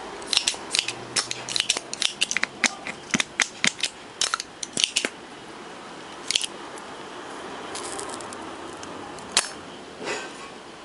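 A quick, irregular run of sharp clicks and snaps for about five seconds, then a few single clicks later on, over a steady low hiss.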